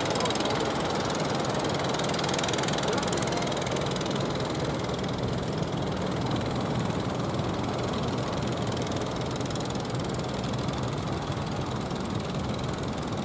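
Engines of motorised wooden fishing boats running steadily as the boats pass through the channel, over an even wash of water and wind.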